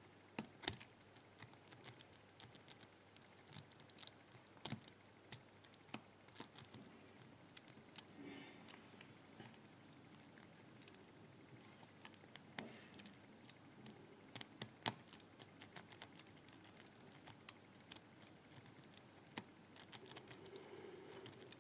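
Faint, irregular clicking of a four-wheel combination padlock's number wheels being turned by hand, with the odd small rattle as the shackle is tugged to test the setting.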